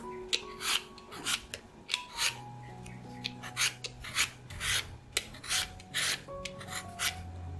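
Y-shaped vegetable peeler scraping the skin off a raw potato in quick repeated strokes, about two to three a second, over faint background music.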